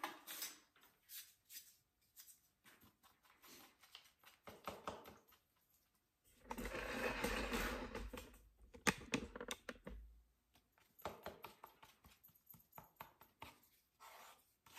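Putty knife scraping and tapping on a paper mixing board as Evercoat metal glaze putty is mixed with its blue hardener: a faint run of small clicks and scrapes. A louder stretch of rustling with a low rumble comes in the middle.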